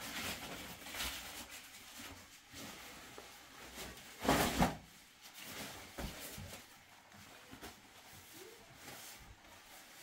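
Quiet, scattered knocks and handling noises, with one louder short clatter about four and a half seconds in.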